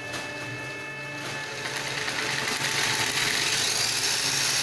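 Small electric motor and gearbox of a Subotech BG1522 RC jeep whirring as its wheels spin freely in the air, growing louder about two seconds in as the throttle is opened further.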